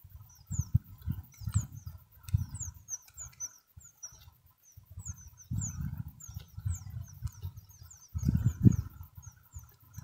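Nestling songbirds begging from a cliff-crevice nest: rapid thin high chirps, several a second, each a short downward slide. Irregular low thumps and rumbles sound underneath and are the loudest part.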